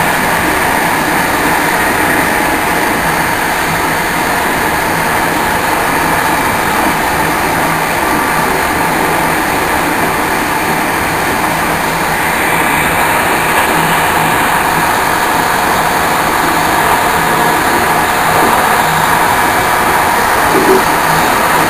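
InterCity train running along the line, heard from inside its last carriage: a steady rolling rumble of wheels on rail with a faint low hum underneath.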